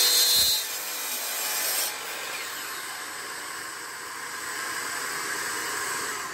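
DeWalt sliding compound miter saw cutting through a zebrawood board. The loud cut ends about two seconds in, and the blade keeps spinning more quietly, its pitch starting to fall near the end. The blade is dirty and worn out, and it leaves burn marks in the hard zebrawood.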